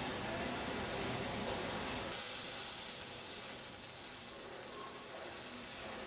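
MIG welding arc on a conventional torch without fume extraction, a steady crackling hiss that turns brighter and sharper about two seconds in, as the weld gets going above the hand.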